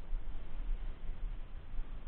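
Outdoor background noise: an uneven low rumble with a faint steady hiss, and no distinct events.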